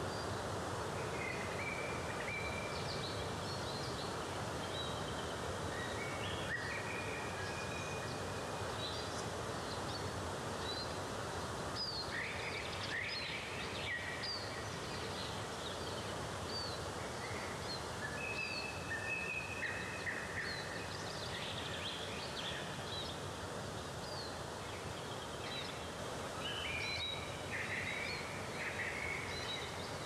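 Steady rush of a waterfall with many birds singing over it: short chirps and a few held whistling notes throughout.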